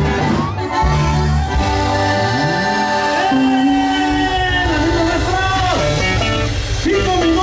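Live norteño band playing a huapango. A melody line of long, wavering held notes runs over a steady bass, with a slide upward about two seconds in.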